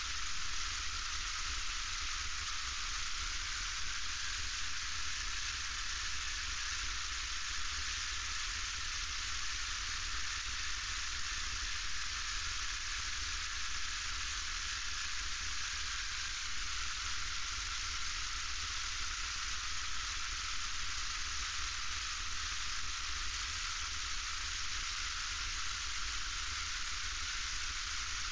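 Steady hissing cabin noise of a light single-engine airplane taxiing, heard from inside the cockpit. A faint whine rises a little about four seconds in and settles back about halfway through.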